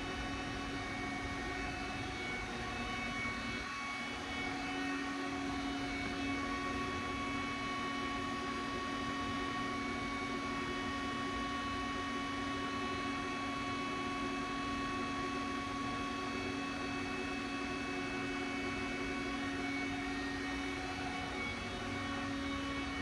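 Steady machinery hum and whine with several fixed tones, as from a running motor or fan.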